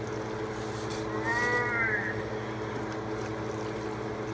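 A steady low mechanical hum under the stirring of a thick, heavy macaroni and cheese mixture with a wooden spoon in a steel stockpot. About a second in, a short rising-and-falling whine sounds for about a second.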